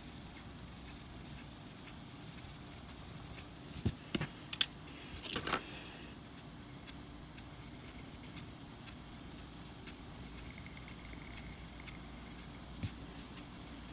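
Coloured pencils handled on paper: a few light clicks a little before halfway, then a short scratchy pencil stroke, over a steady low hum; one more click near the end.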